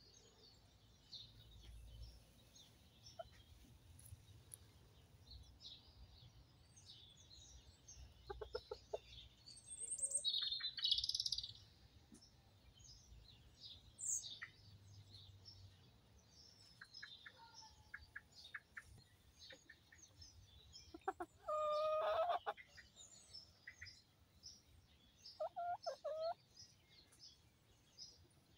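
Bantam chickens clucking now and then, with one longer drawn-out call a little after twenty seconds in. Small wild birds chirp faintly throughout, and a loud high bird call stands out about ten seconds in.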